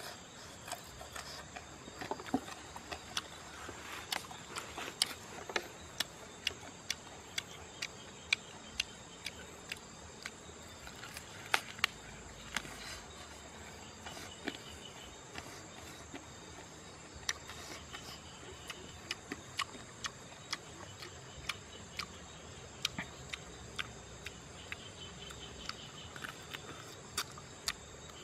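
A man chewing and biting charred grilled duck: irregular wet smacks and clicks of mouth and lips, several a second at times, over a steady high insect drone.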